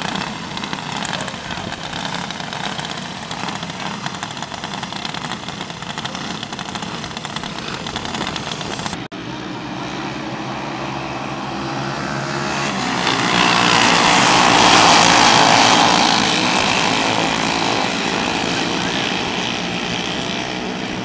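Several racing karts' small engines running hard as the pack laps the dirt oval. About halfway through the sound swells as the karts pass close by, loudest a few seconds later, then fades as they move away.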